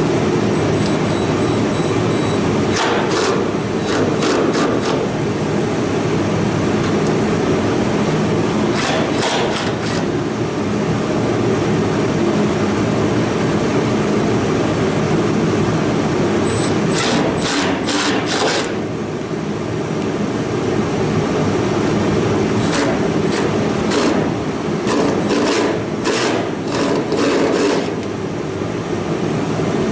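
Cordless drill-driver working screws on a truck's cowl in several short bursts of rapid clicking, over a steady loud rumble.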